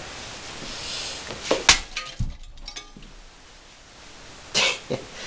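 A bowling ball smashing down onto a cheap plastic stereo turntable: a sharp crash about a second and a half in as the smoked plastic dust cover shatters, followed at once by a heavy low thud, then scattered clattering of plastic pieces, with another short crack near the end.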